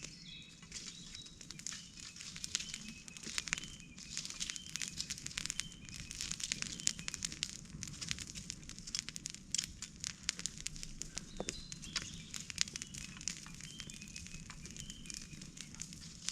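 Open campfire of felled tree wood burning, crackling with many sharp, irregular snaps.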